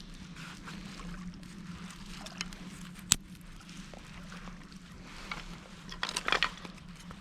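Small dry twigs snapping and crackling as a newly lit kindling fire is fed: scattered light clicks, one sharp snap about three seconds in and a quick cluster of crackles near the end, over a low steady hum.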